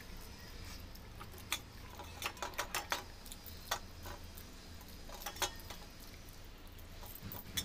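Someone eating by hand from a steel plate: irregular sharp clicks and smacks from chewing and from fingers working the plate, over a steady low hum.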